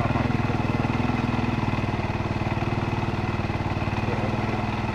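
ATV engine running steadily at low, even speed while riding a dirt trail, with a rapid, even putter.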